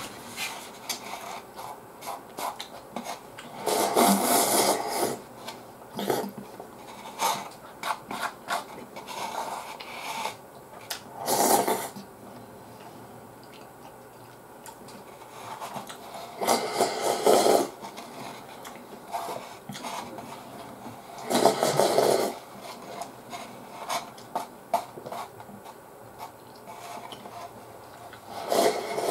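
Slurping instant ramen noodles and soup from a cup, in about five loud slurps of around a second each, with quieter chewing and small clicks between them.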